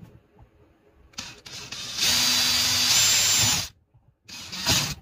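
Power drill with a twist bit boring into the wooden front of a drawer box to move a screw hole slightly higher. It runs up, holds a steady whine for about a second and a half, then stops abruptly, with a short second burst near the end.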